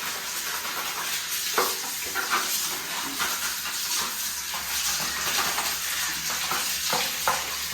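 Water running in a steady hiss during the cleaning of a washing machine, with a few brief scrapes or knocks.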